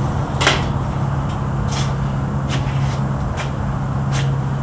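A steady low machine hum runs under about five short, sharp clicks or taps, roughly one a second; the first, about half a second in, is the loudest. The clicks are small metal parts or tools being handled at the bench vise.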